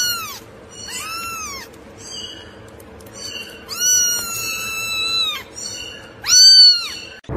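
Kitten meowing over and over in high-pitched cries, with a long drawn-out meow about four seconds in and the loudest one near the end.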